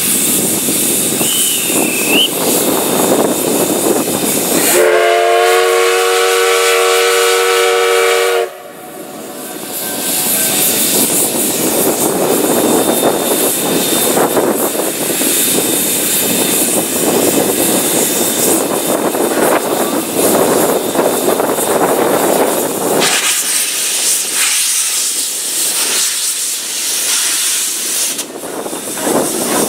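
JNR Class C11 tank steam locomotive venting steam with a loud steady hiss. About five seconds in, its steam whistle sounds one long chord-like blast of about three and a half seconds, then the hiss carries on.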